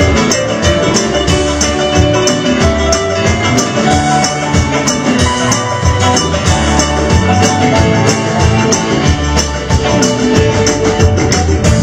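Instrumental band music with no singing, played over a steady, busy percussion beat.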